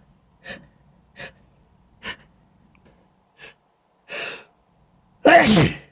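A man's gasping in-breaths building up to a sneeze: four short catching gasps, a longer breath about four seconds in, then a loud sneeze with a falling voiced "choo" near the end.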